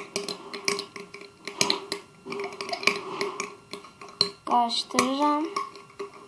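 A utensil clicking and scraping irregularly against a container while stirring glue slime that has just had borax activator added and is already clumping together.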